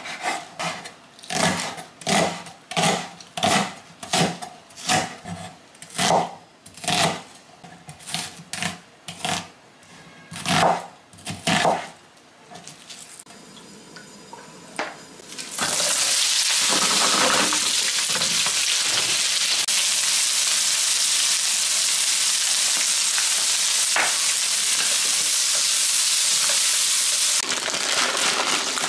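A chef's knife chops a green onion on a wooden cutting board, with evenly spaced knocks about two a second for the first twelve seconds. After a short lull, oil in a nonstick frying pan sizzles steadily from about halfway in and stops shortly before the end.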